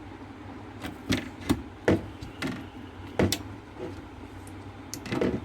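Sharp plastic clicks and knocks, about six of them, the loudest near the middle, as an 8GB DDR4 RAM stick is handled and pressed into a motherboard's memory slot until the latches snap shut. A steady low hum runs underneath.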